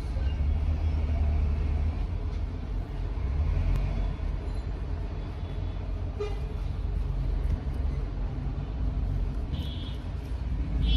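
Steady low rumble of background road traffic, with a brief high horn-like tone near the end.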